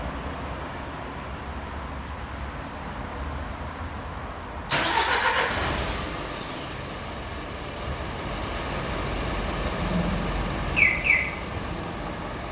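A Hyundai Mighty truck's diesel engine, triggered by a remote starter, cranks and catches abruptly about five seconds in, then settles into a steady idle. Two short high chirps come near the end.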